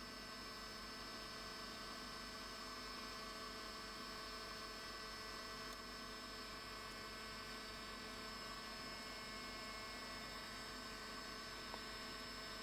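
Faint steady electrical hum and hiss, with one small click near the end.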